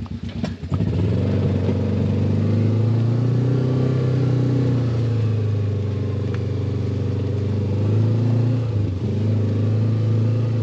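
John Deere Gator XUV side-by-side's engine, pulsing evenly at idle, then picking up under throttle about a second in and running steadily as the vehicle drives off. It eases off briefly near the end.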